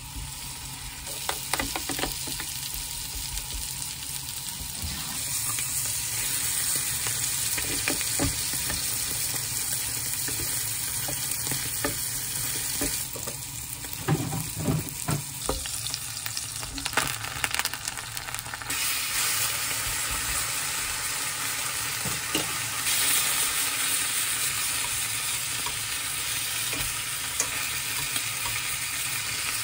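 Food sizzling as it fries in a pan: first a cabbage-and-corn mixture in a square frying pan, then bread and ham in a larger pan. Taps and scrapes of a spoon and chopsticks against the pans come through now and then, and the sizzle changes suddenly in level a few times.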